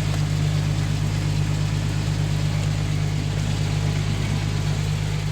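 Jeep Cherokee idling in gear with its rear axle off the ground, the rear driveline and tyres spinning freely in a steady, even hum. The rear axle is a Chrysler 8.25 with a chipped ring-gear tooth, run to listen for damage noise, and the tyres hold balancing beads that add to the noise.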